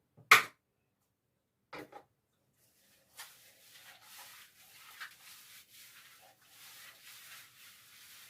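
Two short sharp clicks, the first loud and the second faint, then soft, uneven rustling and scratching.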